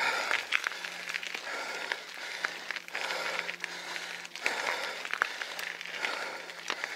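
Heavy panting breaths of a mountain biker out of breath after a hard climb, a breath every second or two, with scattered sharp clicks and crackles.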